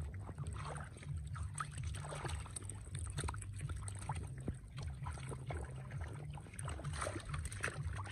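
Hands splashing and sloshing through shallow muddy water in quick, irregular splashes while groping for fish by hand.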